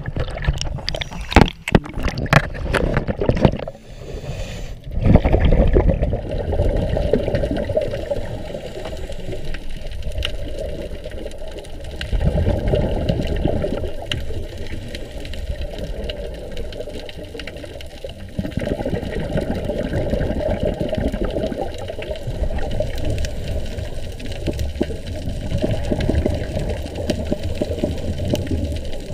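Water splashing and sloshing against a GoPro housing at the surface, with sharp clicks in the first few seconds, then the muffled underwater rush once the camera is submerged. The rush swells and falls every four to six seconds with a scuba diver's breathing and exhaled bubbles.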